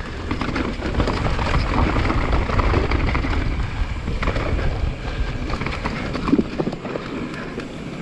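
Downhill mountain bike ridden fast over a rough trail: tyres rolling over dirt, with the frame and chain rattling in many small knocks, and wind rumbling on the GoPro microphone. One sharper knock comes about six seconds in.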